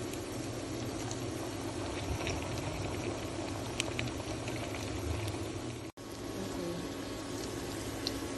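Salmon patties frying in hot oil in a pan: a steady sizzle with occasional small crackles and pops. The sound drops out for an instant about six seconds in.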